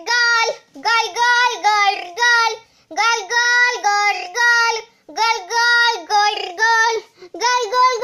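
A child singing a high, repetitive tune in short phrases of several quick notes, a new phrase starting about every two seconds.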